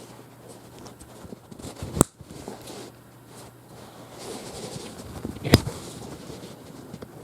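Plastic XT90/XT90i power connectors being handled, with two sharp clicks about three and a half seconds apart amid light rustling.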